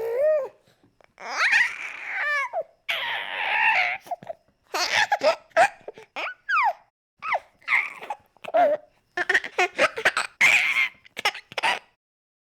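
Baby laughing and babbling: high-pitched squeals and gliding coos at first, then a run of short, rapid giggles that stops about a second before the end.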